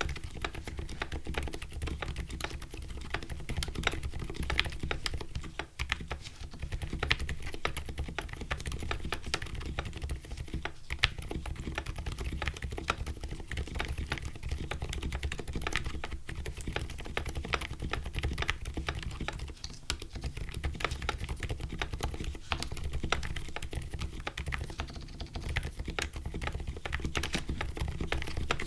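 Continuous fast typing on a custom mechanical keyboard with lubed Silent Alpaca linear switches, a polycarbonate plate and PBT keycaps: dense, soft, muted keystrokes with no switch click, over a low steady hum.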